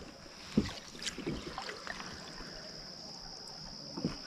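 A few light knocks and bumps on a plastic fishing kayak's hull as the angler shifts and handles his rod: one about half a second in, a couple around a second in, and one near the end. Under them runs a steady high-pitched insect hum.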